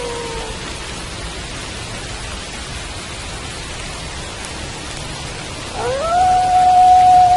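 Wolf howling over steady rain: one howl falls away and ends in the first half second, and near the end a new howl rises quickly and holds a steady pitch.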